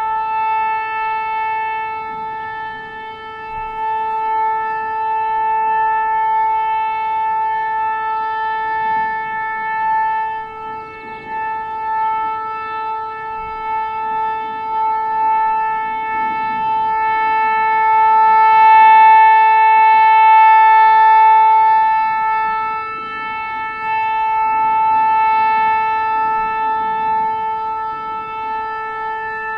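Nuclear warning siren holding one steady tone. Its loudness slowly swells and fades and is loudest about two-thirds of the way through.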